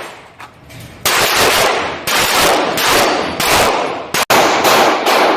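Pistol gunfire: a rapid string of shots, roughly two a second, from about one second in, each with a long ringing tail.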